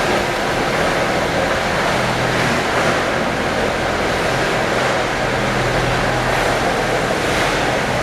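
Steady machinery drone: a constant low hum under a loud, even wash of noise, with no breaks.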